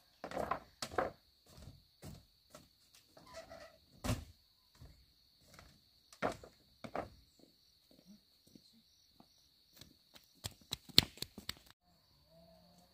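Irregular knocks and thuds on wood and bamboo, with a cluster of sharper knocks near the end, over a steady high insect buzz.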